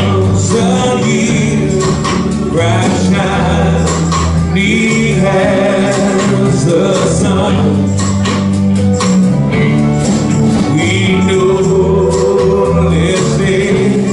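Live worship band playing a song: electric guitar over held bass notes with percussive hits, and a singing voice.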